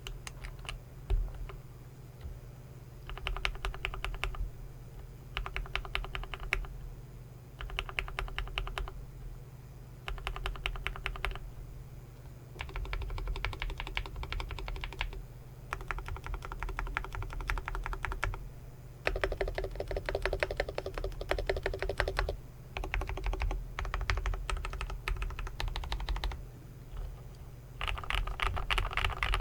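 Typing on an iDOBAO ID80 mechanical keyboard with Gateron Milky Yellow linear switches in an integrated aluminium plate, fitted with Cherry-profile Keybox 2048 Japi keycaps. The keystrokes come in fast runs of one to three seconds, separated by short pauses.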